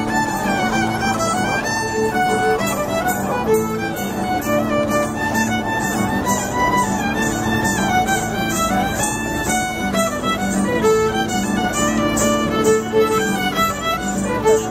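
A lively folk dance tune led by a fiddle over a steady held drone, with a light regular beat.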